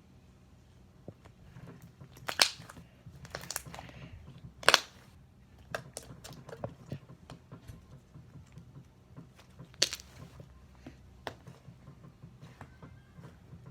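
Slime being squished and stretched by hand: irregular sticky clicks and pops, with a few sharp louder pops about two and a half, three and a half, four and a half and ten seconds in.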